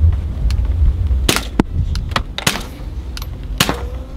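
Suppressed .22 rimfire pistol shots, a Ruger 22/45 Lite firing through a Dead Air Mask HD suppressor at steel targets. Several short, sharp reports come roughly a second apart, with the clang of steel being hit.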